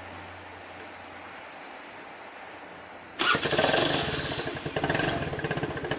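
Motorcycle engine sound, meant as a KTM Duke's, played through a speaker. It cuts in suddenly about three seconds in and runs with a rapid, even pulsing.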